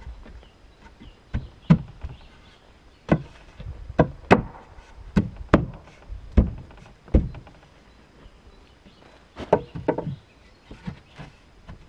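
Wooden knocks and taps, about a dozen at irregular intervals, some in quick pairs, as wooden window trim boards are handled and set against a log cabin wall.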